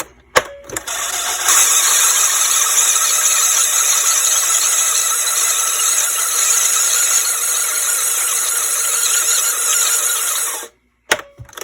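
Dictaphone tape playback unit winding its tape at high speed: a click, then about ten seconds of steady high-pitched whirring hiss, which stops abruptly with a couple of clicks near the end.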